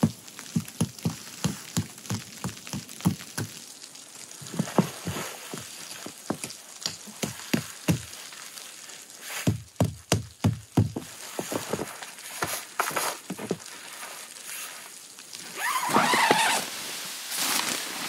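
Footsteps in snow: runs of short dull thuds, about three a second, that stop and start. Near the end comes a louder rustling noise lasting a couple of seconds.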